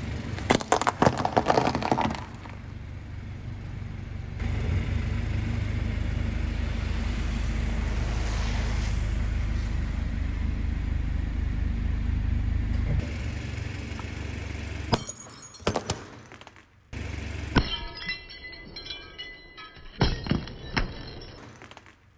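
A car tyre crushing objects one after another. First a burst of crunching as dry snacks and biscuits break, then a long steady low engine hum as it rolls over wet sponges. In the second half, glass figurines crack and shatter in several sharp impacts.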